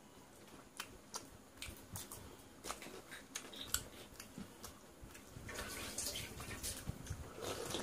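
Close-up eating sounds of panta bhat, watery soaked rice, eaten by hand: a run of small wet clicks and smacks from fingers in the rice-water and the mouth. Near the end come longer wet slurps as the leftover water is drunk from the tipped plastic plate.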